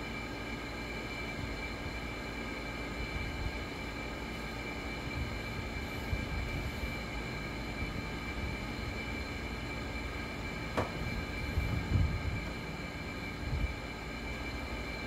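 A steady machine hum with several faint high whining tones over a low rumble. One sharp click comes about eleven seconds in, and a few louder low thumps follow near the end.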